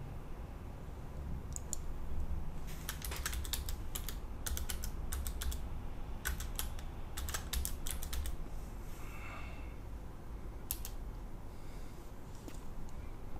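Typing on a computer keyboard: quick runs of key clicks, then a few single clicks near the end, over a low steady hum.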